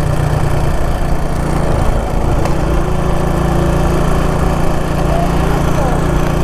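Honda XL 125 motorcycle's single-cylinder four-stroke engine running steadily on the road, heard from the saddle.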